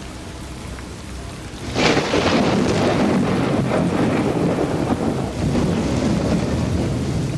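Heavy rain falling steadily, with a sudden thunderclap about two seconds in that carries on as a loud rolling rumble.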